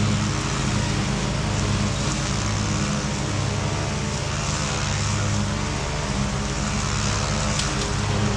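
Lawn mower engine running steadily, its low pitch wavering slightly as it works.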